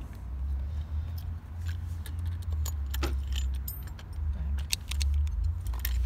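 Scattered light metallic clicks and clinks of a folding hex key set and other small metal tools being handled, over a steady low rumble.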